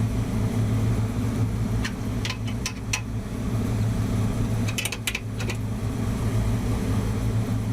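Steady low hum of running rooftop air-conditioning equipment, with a few light metallic clicks and taps from a wrench on the blower motor's mounting nut, a cluster of them about five seconds in.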